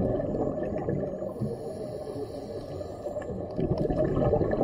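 Muffled underwater rumble and gurgle of moving water, heard through a camera submerged in a waterproof housing, with scattered faint clicks. It swells and eases, louder again near the end.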